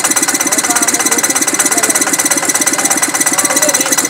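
Two-wheel walking tractor's engine idling with a steady, fast chugging of about ten beats a second.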